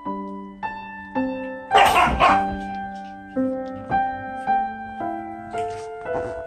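Slow solo piano music, with one short dog bark cutting through it about two seconds in.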